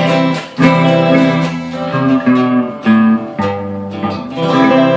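Guitar strumming sustained chords with no singing, a new chord struck about every second: the instrumental close of a song after its final sung line.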